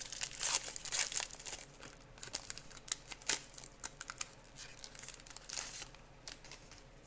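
Crinkling of a trading card pack's foil wrapper as it is torn open and handled: dense crackling for the first couple of seconds, then scattered crackles and clicks that thin out toward the end.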